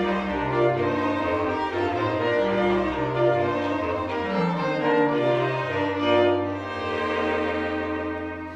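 Bass clarinet and string quartet (two violins, viola and cello) playing a chamber quintet together: sustained string chords over a low line that steps from note to note, easing off briefly near the end.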